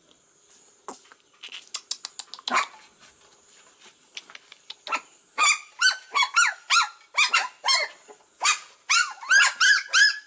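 Young puppies yelping: a fast run of short, high-pitched cries, about three a second, starting about halfway, after a few light knocks and scratches from the pups scrambling about.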